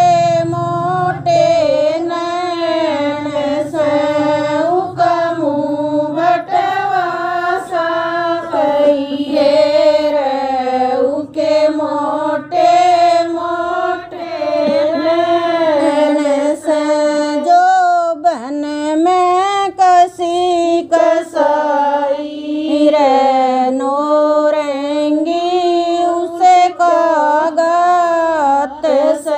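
Women singing a Haryanvi jakadi folk song without instruments. The melody wavers up and down in sung lines, broken by brief pauses for breath.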